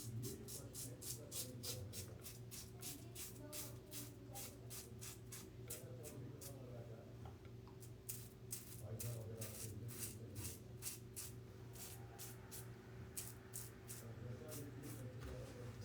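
Safety razor scraping through lathered stubble in quick short strokes, about three a second, with a brief pause partway through; a steady low hum runs underneath.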